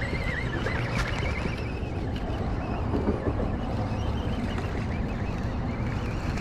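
Wind rumbling steadily on the microphone aboard a bass boat, with faint high wavering chirps over the first couple of seconds.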